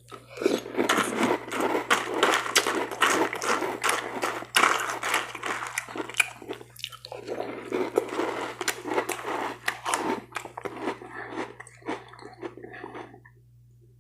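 Close-up chewing and crunching of Froot Loops cereal in almond milk, a mouthful after mouthful, until it stops about a second before the end.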